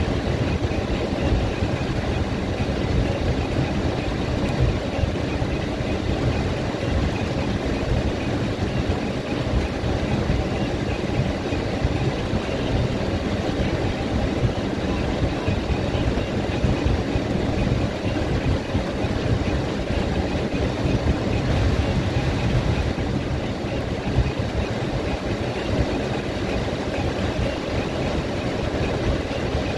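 Heavy rain pelting the roof and windshield of a car, heard from inside the cabin as a steady dense patter, with the engine idling underneath.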